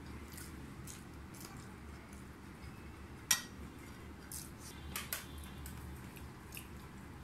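Ceramic plates and bowls clinking and tapping as food is eaten by hand. A few scattered light clicks, with one sharper clink about three seconds in.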